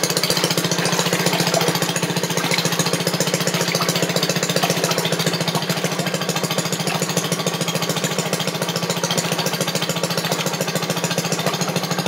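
Two-stroke gasoline engine of an old Maytag wringer washer running at a steady speed, a rapid even putter, while it drives the wringer rollers as a sock and a rag are fed through.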